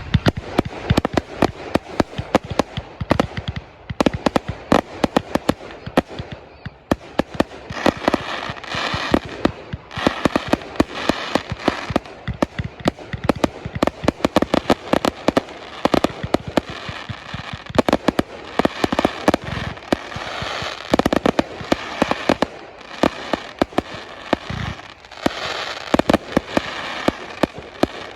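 Fireworks display: a dense, continuous barrage of sharp bangs from exploding shells, several a second, with crackling between them.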